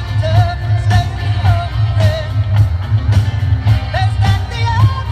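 Rock song with a male-range sung melody over a steady drum beat, bass and guitar.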